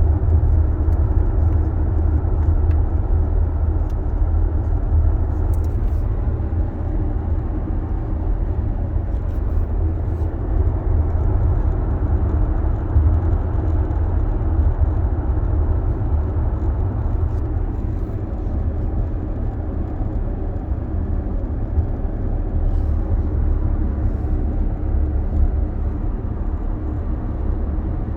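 Steady low road and drivetrain rumble inside a moving 2022 Audi Q7's cabin, with a few faint scattered ticks: the rattle from the HVAC area of the dash.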